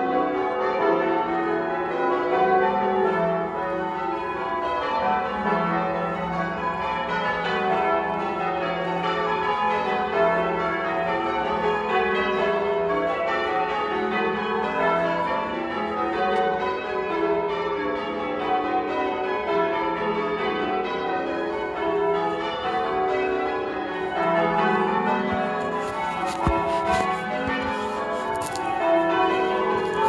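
Church tower bells change ringing: the bells struck one after another in a rapid, continuous sequence, each strike overlapping the ring of the last.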